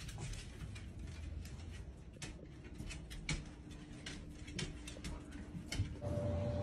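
Dogs' claws clicking and scrabbling on a tile floor in quick irregular ticks as they tussle. Near the end a steady hum comes in.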